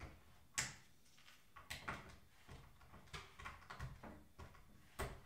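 Small clicks and scrapes of a thin screwdriver prying plastic screw-cover dots out of a plastic remote-control housing, with sharper clicks about half a second in and near the end.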